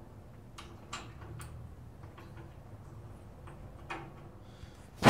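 A few scattered, irregular metallic clicks and taps from hand tools, an Allen wrench and a wrench, working the bolts of a sawmill's blade guide assembly.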